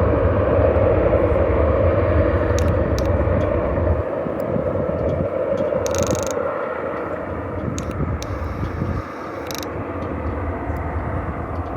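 Jet noise from a Cessna 650 Citation VI's twin turbofan engines at takeoff, a steady roar fading gradually as the jet moves away. A low rumble under it drops away about four seconds in, and a few faint clicks come through.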